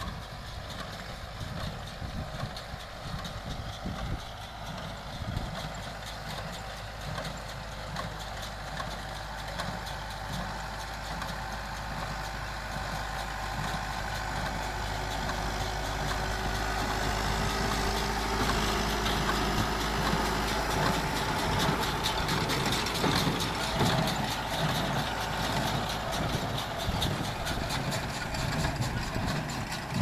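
John Deere tractor's diesel engine running steadily at working revs while it pulls a vintage Massey Ferguson small square baler that is baling hay. The baler's mechanism gives a fast, continuous clatter over the engine. The sound grows louder in the second half as the machines draw near.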